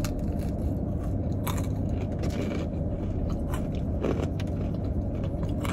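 Close-up chewing and biting of Church's fried chicken, with a few short crisp crunches, over a steady low hum.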